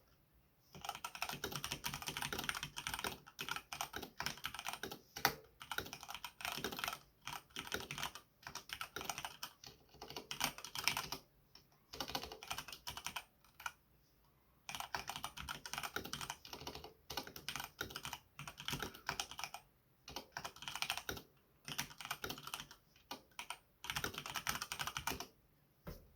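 Typing on a Samsung mechanical keyboard fitted with Cherry MX Brown switches, with foam dampening in the case and lubed stabilizers: fast runs of key clacks several seconds long, broken by short pauses.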